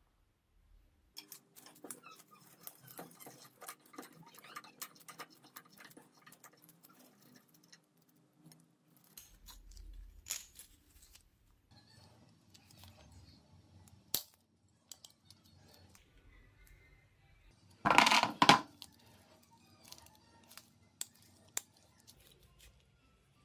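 Small metal parts and hand tools clicking and clinking as a hammer drill's gear assembly is worked by hand, with a louder brief rattle of metal about three quarters of the way through.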